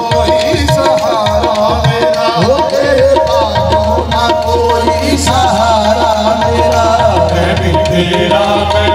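Qawwali music: tabla drumming in a steady rhythm under a sustained harmonium melody with wavering ornamented lines.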